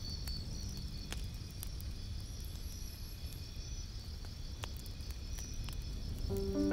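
Quiet gap between two music tracks: a faint low rumble with scattered soft clicks and a faint high, cricket-like trill. Soft melodic music comes in near the end.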